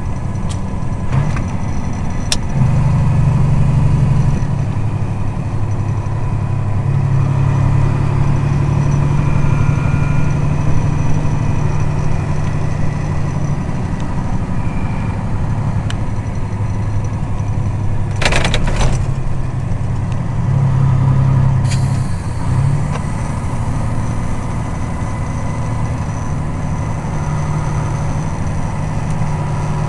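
Log truck's diesel engine running under way, heard from inside the cab: a steady low drone that steps up and down in pitch a few times. A short burst of noise cuts across it about two-thirds of the way through.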